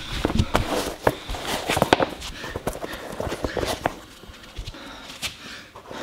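Irregular taps, knocks and rustling as a canvas sneaker is handled on a concrete floor: set down, its laces pulled loose and an insole pushed in. The sounds are busiest in the first two seconds and thin out after.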